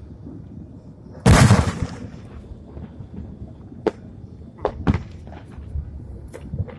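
Fireworks: one loud boom about a second in, then a scatter of smaller cracks and pops.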